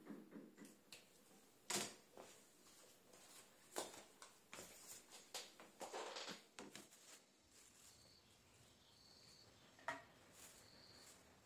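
Faint handling sounds of pen, paper and a planner on a desk: a few sharp clicks and a rustle. Near the end, a click and rustle of a plastic bag, with a few faint short high chirps.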